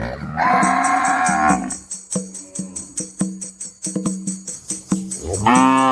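Background music with a steady beat of wood-block clicks and tambourine jingles. A cow moos once near the end, its pitch rising then falling.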